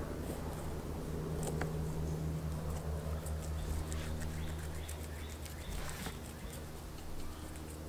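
A large knife cutting along a bluefish's backbone, with scattered small clicks and scrapes as the blade works past the bones, over a steady low hum.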